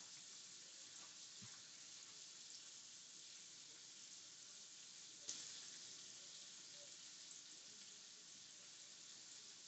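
Ham slices frying in a skillet: a faint, steady sizzle, with a single light click about five seconds in.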